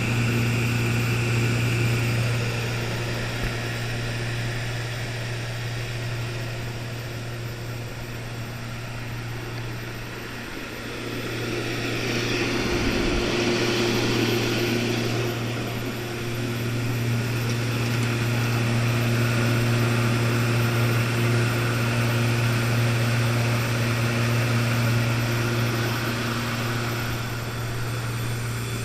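HIPOWER HFW300 T6U diesel generator set running steadily at full load: a deep, even engine hum. It eases slightly about ten seconds in, then comes back up louder and brighter.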